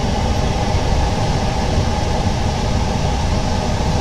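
Steady machine drone with a heavy low rumble and a faint hum, unchanging throughout.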